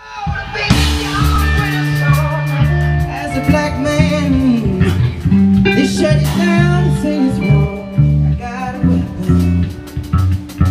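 A blues-rock band playing: electric bass guitar and drum kit with keyboards, starting suddenly out of silence.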